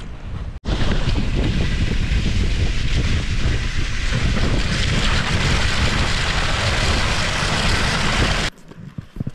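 Skis and a loaded pulk sled running fast over hard, tracked snow: a loud, dense hiss and rattle with wind on the microphone. It starts abruptly about half a second in and cuts off abruptly near the end. Before it come a few softer, rhythmic ski strides.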